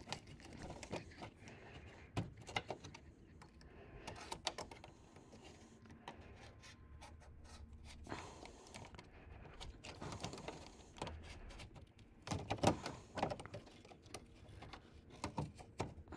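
Razor knife cutting and scraping through the plastic underbody skid plate, with irregular faint clicks and crackles as the panel is pulled and flexed; a louder run of scraping comes about three quarters of the way through.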